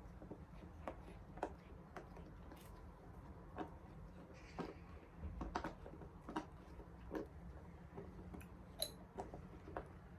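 Silicone pop-it fidget toy bubbles being pressed one after another, giving soft irregular pops about one or two a second over a low steady hum.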